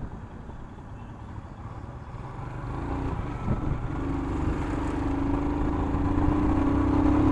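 Motorcycle on the move, engine running with a low rumble of wind and road. From about three seconds in a steady engine drone grows louder and rises slightly in pitch as the bike draws alongside a tractor.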